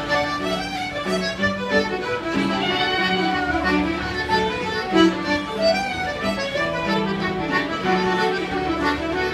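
Several fiddles and an accordion playing an Irish reel together in unison, with a steady low accompaniment underneath.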